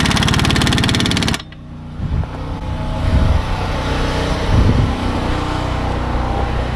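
Impact wrench hammering a fastener tight in a rapid rattle, cutting off sharply about a second and a half in. A steady low mechanical hum continues underneath, with a few dull knocks later.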